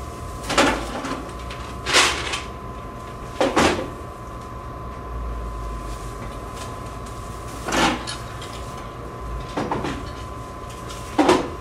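Six separate knocks and clunks of an unlocked vending machine being opened and its parts handled, a second or more apart, over a steady faint hum.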